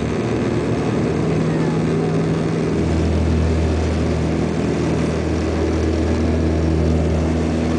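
Dash 8-200's twin turboprop engines and propellers running, heard from inside the cabin as a steady drone with a deep propeller hum that grows stronger about three seconds in.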